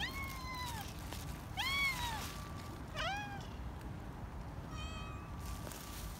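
Domestic cats meowing for food: three meows that rise and then fall in pitch in the first three and a half seconds, then a fainter, flatter meow about five seconds in.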